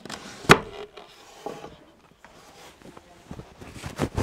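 Handling noise: rubbing and scattered knocks against wood, with one loud sharp knock about half a second in and a cluster of knocks near the end.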